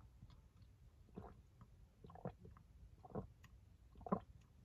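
Faint gulps of water swallowed from a plastic water bottle, about one a second, four in all.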